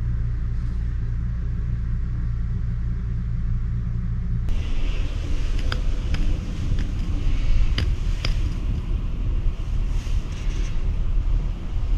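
A steady low rumble with no speech. About four and a half seconds in it changes abruptly and turns rougher, and a few sharp clicks come through.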